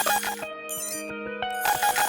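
Background music: held notes ring on through a short break in the beat, and the rhythmic pattern comes back near the end.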